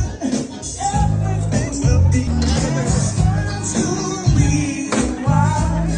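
Pop music with a steady beat and a singing voice.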